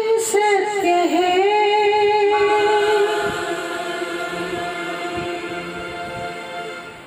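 A man singing into a handheld microphone: one long held note with quick ornamental turns in its first two seconds, then steady and fading away near the end.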